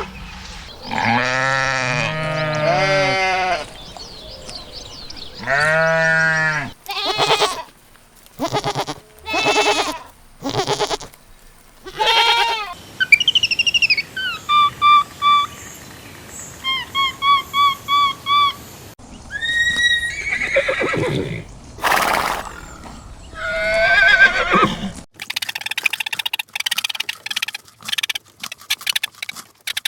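A string of different farm animal calls, one clip after another: long pitched calls in the first half, then a run of short, evenly repeated high chirps around the middle, then more varied calls toward the end.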